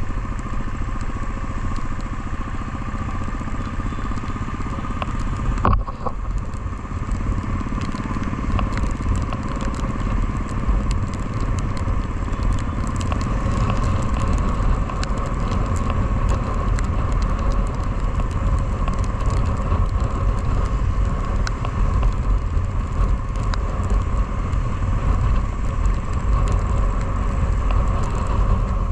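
Motorcycle engine running steadily under load while the bike climbs a hill, with a low rumble and scattered small ticks. A single sharp knock about six seconds in.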